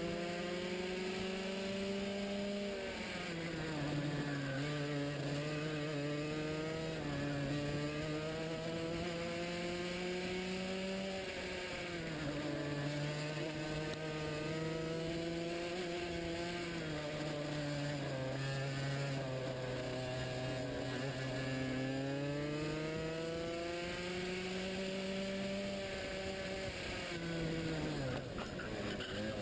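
Racing kart engine heard onboard at race pace, its pitch climbing steadily along the straights and dropping quickly for the corners, several times over.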